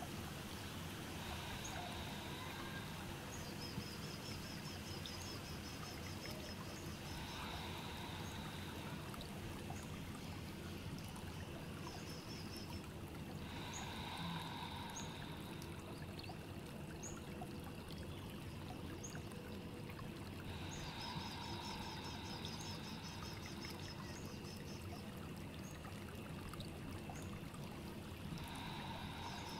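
Steady rush like running water, with a resting Baird's tapir's slow breaths coming about every six or seven seconds.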